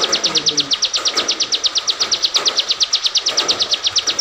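Caged ciblek (bar-winged prinia) singing continuously: an unbroken, even run of sharp high chirps at about ten a second, the steady 'gacor' song prized by bird keepers.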